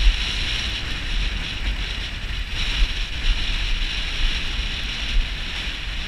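Strong wind buffeting the microphone in uneven gusts over the steady wash of breaking surf.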